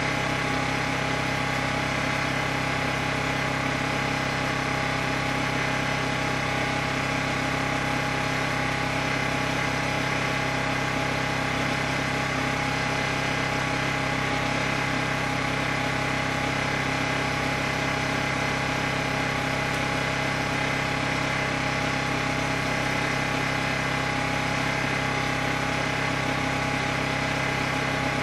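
Generator engine running at a steady, unchanging speed.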